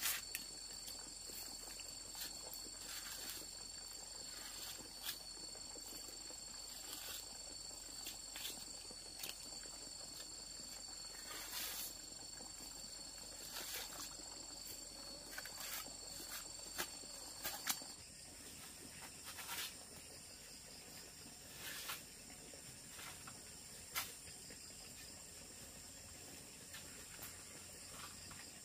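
Insects calling in steady, high-pitched unbroken tones; one of the tones stops about two-thirds of the way through. Scattered short knocks sound over them.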